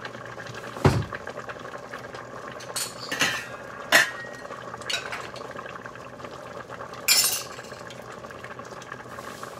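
Kitchen clatter of a wooden spoon stirring a stainless steel stockpot, with a few sharp knocks and clinks of utensils on metal; the loudest knock comes about a second in. A steady hum runs underneath.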